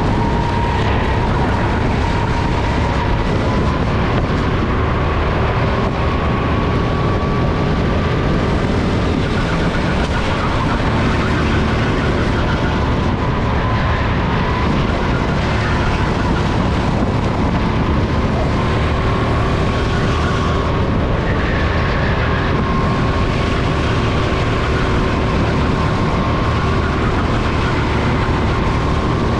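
Onboard sound of a SODI RT10 go-kart's engine running at racing pace, its note rising and falling gently, over steady wind and track noise.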